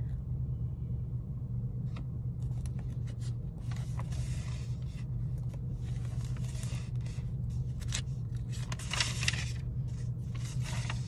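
Steady low rumble inside a car cabin, with repeated bursts of papery rustling and scraping from tarot cards being shuffled.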